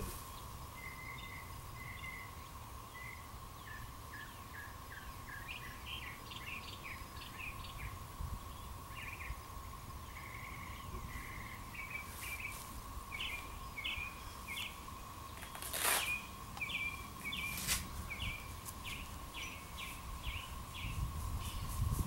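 Constant drone of a distant cicada chorus, one steady hum that runs without a break, taken at first for far-off tractors. Small birds chirp over it, and a couple of brief knocks come late on.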